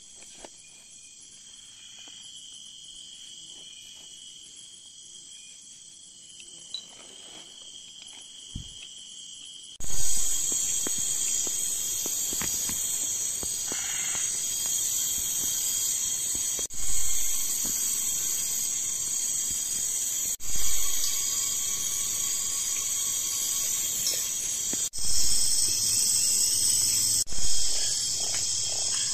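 Forest insect chorus: a steady, high-pitched chirring and buzzing. It is faint at first, becomes much louder at a sudden cut about ten seconds in, and jumps again at several later abrupt cuts.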